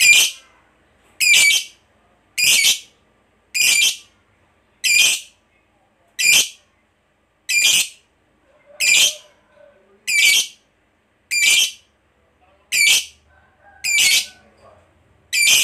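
Lovebird giving short, shrill, harsh calls one after another at a steady pace, about one every 1.2 seconds, with a few faint softer chirps between them.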